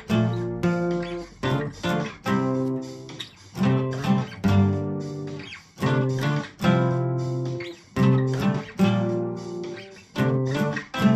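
Music: guitar chords strummed and left to ring, a new strike roughly every second.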